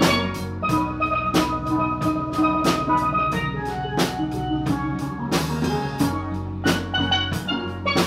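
Live steel-drum band playing: steelpans ring out a melody over a drum-kit beat and a low bass line, with a cymbal crash about five seconds in.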